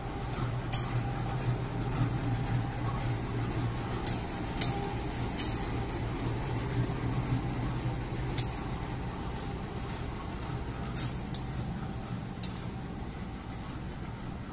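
CC201 diesel-electric locomotive running at low speed as it is shunted, a steady low engine hum that fades about halfway through as it moves away. Several sharp clicks are scattered through it.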